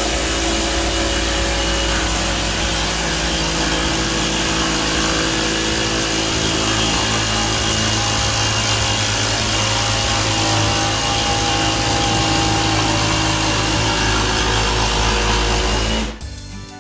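Ryobi cordless jigsaw running steadily as its blade cuts through a particleboard panel, stopping near the end.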